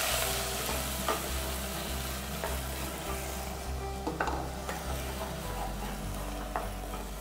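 Onion paste frying in hot oil, sizzling loudest at first and then settling. A wooden spatula stirs it, scraping and knocking against the pot a few times.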